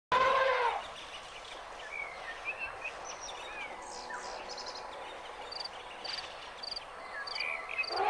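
Nature ambience of birds calling over a steady hiss: scattered whistled chirps, and from about halfway a quick high chirp repeated a couple of times a second. A loud, pitched sound lasting under a second opens it.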